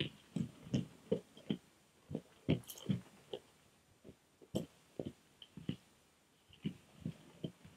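Eurasian brown bear eating, a string of irregular crunching chews and bites, two or three a second, with short pauses between groups.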